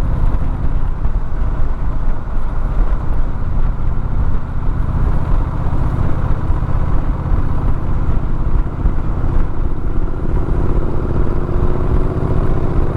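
A road vehicle climbing, heard as a steady low rumble of engine and rushing air, with a faint engine tone rising slowly near the end.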